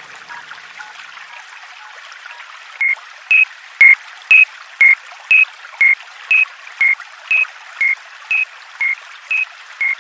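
Level-crossing warning alarm: a pair of alternating high dings, about two a second, starting about three seconds in over a steady hiss. A fainter, lower pair of alternating tones dies away in the first two seconds.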